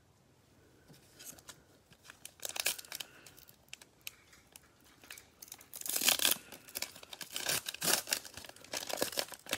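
Plastic wrapper of a Prizm baseball trading-card pack crinkling and tearing as gloved hands open it: scattered crackles from about a second in, with louder bursts of crinkling about six seconds in and again near the end.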